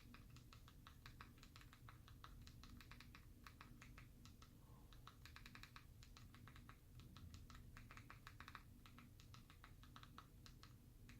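Faint rapid clicking of keys or buttons being pressed in quick irregular runs, as a web address is typed in.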